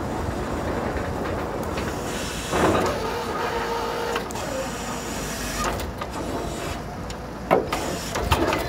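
Truck-mounted borewell drilling rig running steadily, its engine and drilling gear making a continuous mechanical noise. It is broken by a louder knock about two and a half seconds in and a sharp click near the end.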